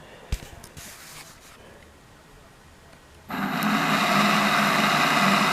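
A faint knock, then a little over three seconds in the electric drive motor and gearbox of an MGI Zip Navigator golf caddy starts and runs with a steady whirring, grinding drone. It is the grinding noise that began after water got into the drive, run again after the spindle and gear were lubricated, and it comes out better than it was.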